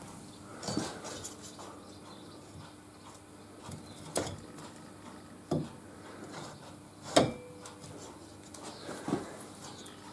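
Scattered metallic clicks and clinks, about five in all, as a steel circular saw blade is moved and set against the grinding wheel of a saw blade sharpener; the clink about seven seconds in rings briefly. A faint steady hum runs underneath.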